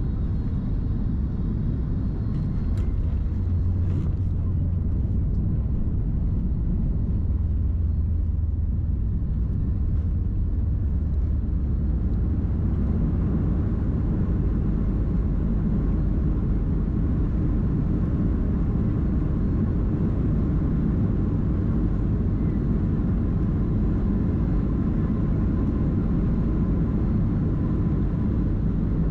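Cabin noise of a Boeing 737 MAX 8 landing and rolling out on the runway: a steady low rumble from the airframe and engines. About twelve seconds in, with the spoilers up, the noise swells and fills out as the plane slows.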